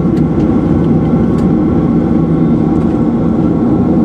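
Cabin noise inside a Boeing 737-700 from a seat by the wing: the CFM56-7B jet engines running steadily on the ground, a dense hum of several steady tones over a low rumble.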